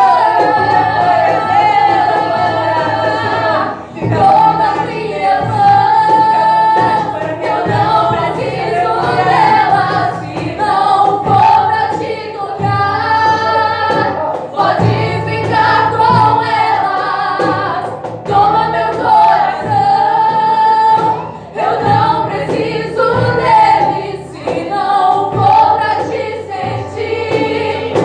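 Live worship song: women's voices singing into microphones over a strummed acoustic guitar, continuous, with brief breaks between phrases.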